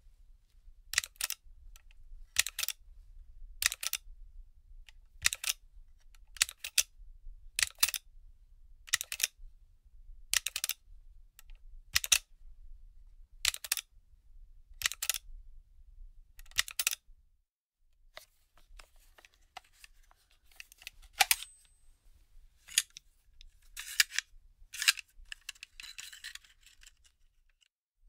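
A paper magazine being handled. About a dozen short, crisp page flips come evenly, roughly every second and a half. After a short pause near the middle, looser, irregular rustling and flapping of the pages follows.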